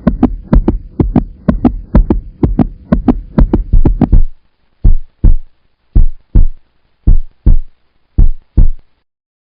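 Heartbeat sound effect. Fast, regular thumps, about three a second, run for about four seconds, then it slows to paired lub-dub beats about once a second and stops near the end.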